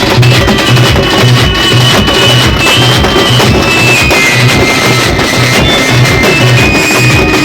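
Halgi frame drums played with sticks in a loud, fast ensemble rhythm, with a deep beat about twice a second. A high, held melody line shifts in pitch over the drumming.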